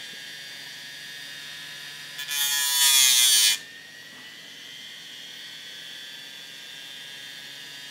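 Hard-drive brushless spindle motor spinning a platter covered in wet-and-dry abrasive paper, with a steady high whine. A little over two seconds in, a metal tool tip is ground against the abrasive for about a second and a half, a loud hissing grind during which the motor's pitch dips under the load.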